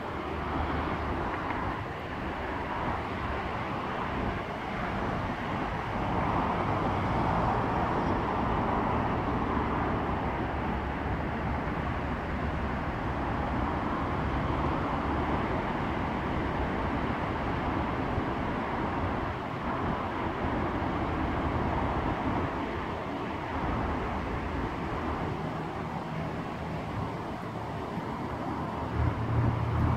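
EMD G-16 diesel shunting locomotive running in the distance: a steady low engine hum under outdoor noise, growing louder near the end as the engine is opened up.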